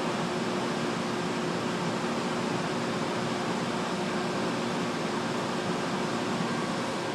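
Steady whir of datacenter machine-room fans and cooling equipment, an even rushing noise with a faint low hum.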